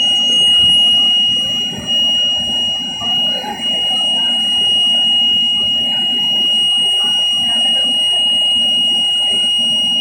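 Orion VII transit bus's warning alarm sounding as a continuous, steady high-pitched tone over the low rumble of the bus interior. The alarm points to an engine fault that the rider takes for probably an overheat, though the driver said it isn't overheating.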